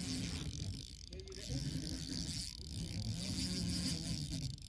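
Fishing reel being cranked to retrieve a plastic grub lure, a steady mechanical whir that comes in uneven spells.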